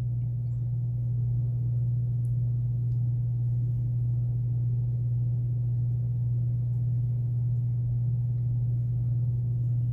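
A steady low hum that stays at one pitch with no change. Apart from it there is almost nothing to hear.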